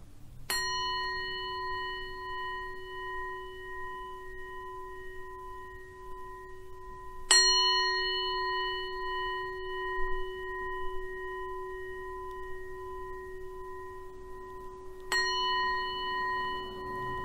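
A singing bowl struck three times, about eight seconds apart, each strike ringing on in a long, slowly fading tone that wavers slightly. It is the bell that closes the guided meditation session.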